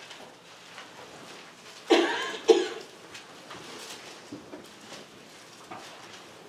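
A person coughing twice in quick succession, about two seconds in, the coughs about half a second apart.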